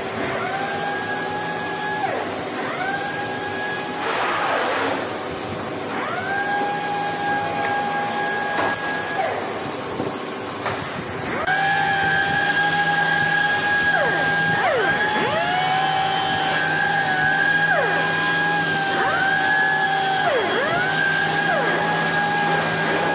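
Pneumatic random orbital sanders whining as they sand wooden chair frames. Each one's pitch climbs as it spins up, holds, then drops away as it slows, over and over and often overlapping, above a steady machine hum.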